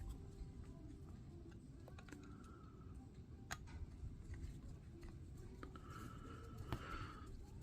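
Light clicks and taps of small carburetor parts (gaskets, diaphragms, screws) being handled and fitted back together, a few sharper clicks among them, over a low steady rumble.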